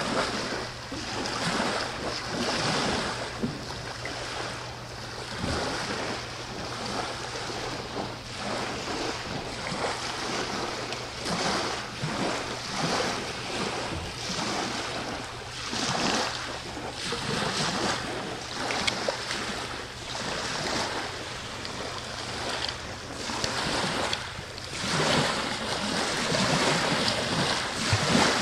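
Small waves lapping and washing against a waterfront sea wall, in irregular surges every second or two, with a steady low hum underneath.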